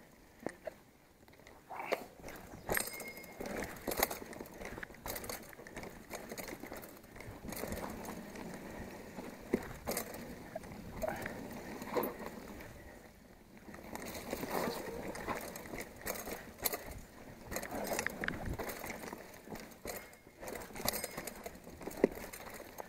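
Mountain bike riding down a bumpy dirt trail: tyres crunching over loose dirt while the bike rattles and knocks over the bumps, with many irregular sharp clicks.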